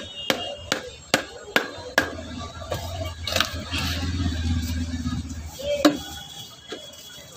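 Wooden mallet knocking on the back of a long fish-cutting blade, driving it down through a large stingray: a run of sharp knocks about two and a half a second, then a few single knocks farther apart.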